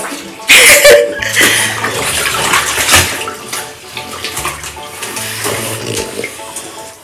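Shallow bath water splashing and sloshing in a bathtub as French bulldogs move about in it, loudest about half a second in.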